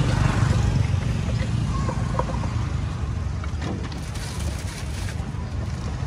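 Steady low engine-like rumble, like nearby traffic, with a few faint knife scrapes and taps on a coconut's shell as it is cut open.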